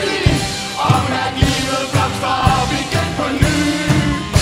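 Upbeat music from a live band with a steady drum beat, about two beats a second.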